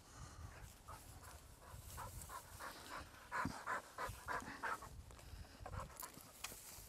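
A pointer bird dog panting hard: a quick run of short breaths, about three a second, strongest in the middle stretch.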